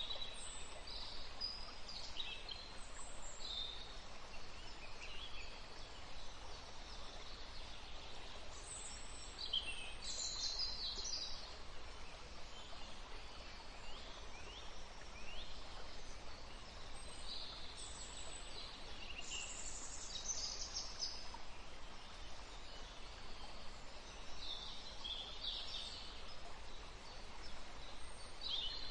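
Forest ambience: a steady hiss of noise with birds singing over it, high chirps and short trills coming in clusters every few seconds.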